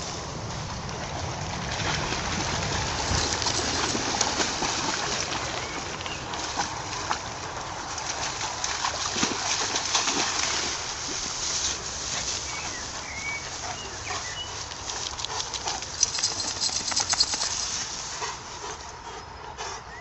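Tall grass and weeds rustling and crackling as they are pushed through, with a few short bird chirps about two thirds of the way in.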